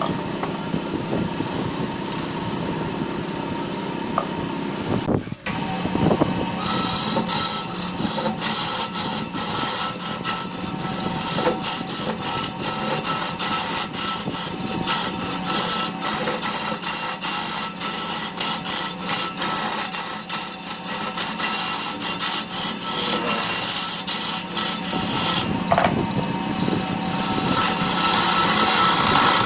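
Large wood lathe running with a steady hum while a hand tool is pressed against the spinning redwood blank. From about six seconds in, a loud, choppy scraping hiss in quick repeated strokes.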